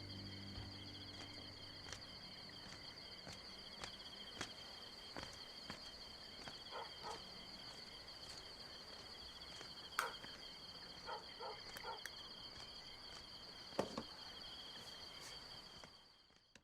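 Insects, crickets by the sound, chirping in a continuous high trill, with a few light clicks and knocks scattered through, the loudest about ten and fourteen seconds in. The trill fades out near the end.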